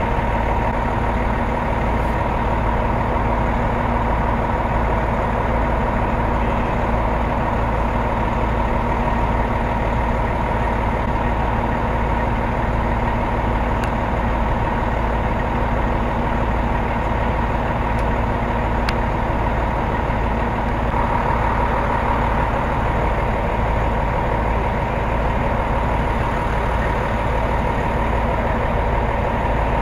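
Heavy engine idling steadily, with a constant low rumble and a steady whine.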